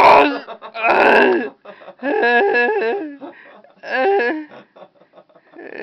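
A person imitating vomiting with their voice: two harsh, hoarse retching heaves, then croaky, gurgling groans.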